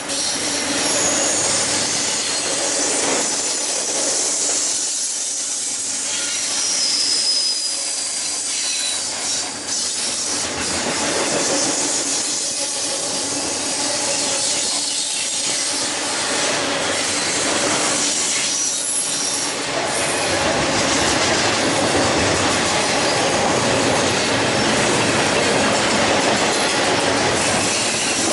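Double-stack intermodal freight cars rolling past at close range: a steady rumble and clatter of steel wheels on rail, with thin high-pitched wheel squeals that come and go, mostly in the first several seconds.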